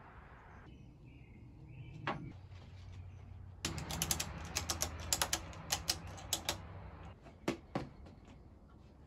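Ratchet strap being tightened around a wooden carving to clamp a glued joint: a quick run of sharp clicks for about three seconds, then two more clicks.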